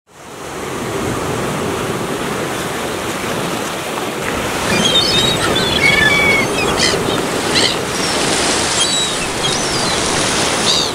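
Ocean surf breaking and washing over rocks: a steady rush of waves that fades in over the first second. Short high chirps and whistles join it from about five seconds in.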